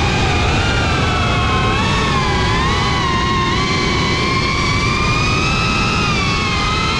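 GeprC CineLog 35 cinewhoop's motors and propellers whining in flight, the pitch gliding up and down with the throttle, over a steady low rush of air.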